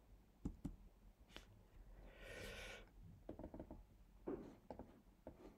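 Near silence, with a few faint computer clicks in the first second and a half and a brief soft sound about two seconds in.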